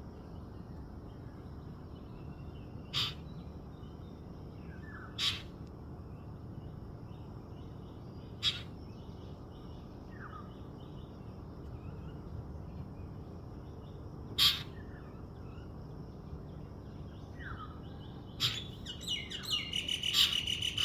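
A bird giving single short, sharp calls every few seconds, then a quick run of calls near the end. Fainter chirping from other birds goes on underneath.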